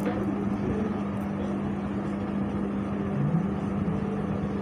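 Steady mechanical drone with a constant low hum running through it.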